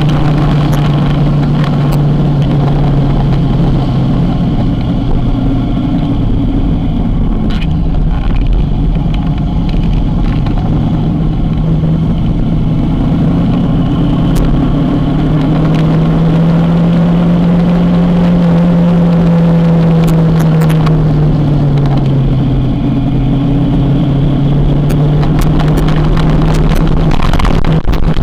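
Kawasaki motorcycle engine running steadily while riding, over a constant low rush of wind. About halfway through, the engine pitch rises and holds for a few seconds, then drops back as the speed changes.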